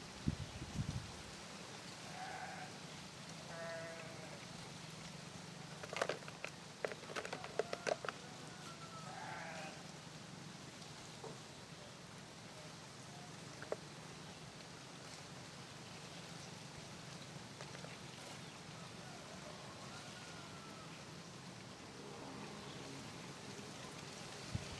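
Livestock bleating: a few short calls about two to four seconds in and again around nine seconds, over a steady faint background. A run of sharp clicks comes around six to eight seconds in.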